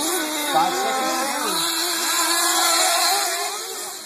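Several nitro RC truggy engines racing, their high-pitched buzz rising and falling as they rev and back off, overlapping one another. They grow fainter near the end.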